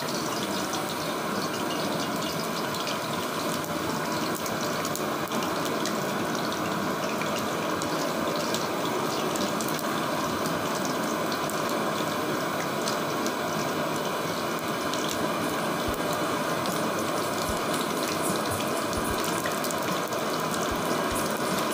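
Whole spices, fennel seeds, cardamom, cinnamon and poppy seeds, frying in hot oil in a pan: a steady sizzle with many small crackles throughout.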